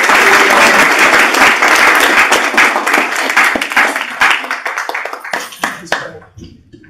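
Audience applauding, the clapping thinning to a few scattered claps and dying away near the end.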